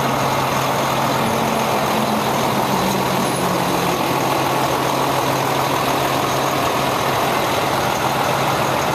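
Diesel truck engine idling steadily: a constant low hum under an even hiss.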